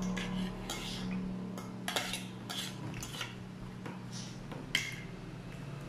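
Metal spoon and fork clinking and scraping against a plate while food is gathered up and eaten, in short irregular strokes with a sharp clink near the end.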